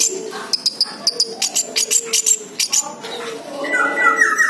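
Orange-headed thrush singing: a fast run of sharp, high chirps, then, near the end, a louder phrase of lower whistled notes.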